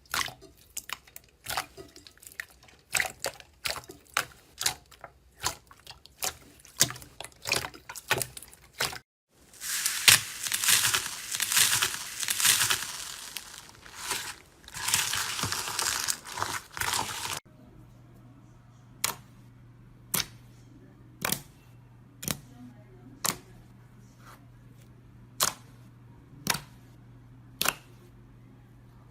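Close-miked ASMR handling sounds: a quick run of sharp crisp clicks, then after a short gap a dense loud crackling crunch, then single crisp snaps about once a second over a low steady hum.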